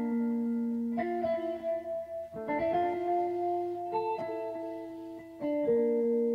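Background music: a picked guitar melody of ringing notes, changing about once a second.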